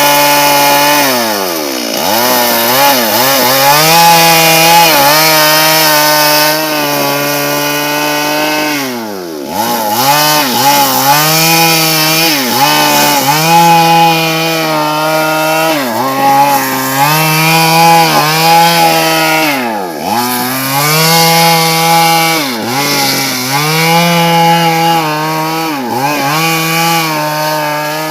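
Two-stroke chainsaw running at high revs while ripping a large sengon log lengthwise into boards, its engine note wavering as the chain bites into the wood. The engine slows sharply and revs back up about nine and again about twenty seconds in.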